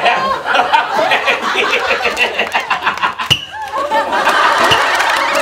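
A group of men laughing in quick pulses, with one sharp knock about three seconds in.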